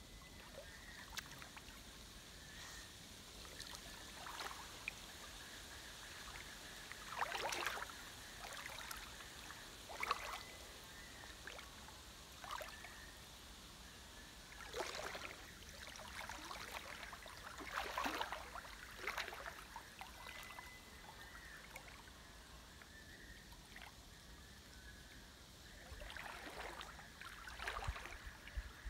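A person wading in a shallow river, with several separate splashes and sloshes of water spread through. These sit over a faint, steady rush of the stream.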